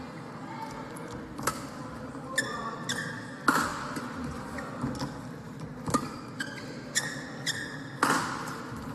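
Badminton rally: racket strikes on the shuttlecock about once a second, with short high squeaks of court shoes between hits.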